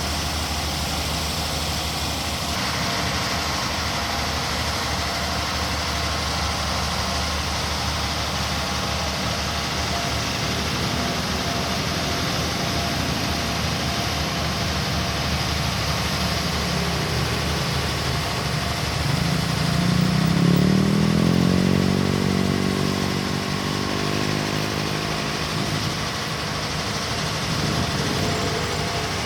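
Engine of heavy road-construction machinery running steadily, revving up about two-thirds of the way through, holding the higher speed for a few seconds, then easing back, with a brief rise again near the end.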